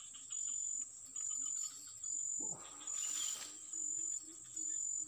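An insect calling in a high-pitched, cricket-like trill that switches on and off in regular pulses a little more than once a second. A brief falling whoosh sounds about two and a half seconds in.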